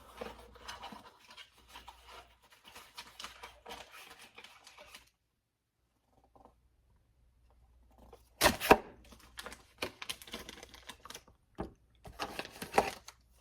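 Small items and packaging being handled by hand: a dense run of light rustling and clicking, a pause of a few seconds, then a sharp knock about eight and a half seconds in, followed by scattered clicks and rustles.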